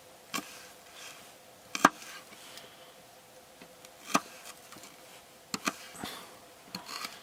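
Kitchen knife chopping onion on a small cutting board: a few sharp, irregularly spaced knocks, two of them close together near the end.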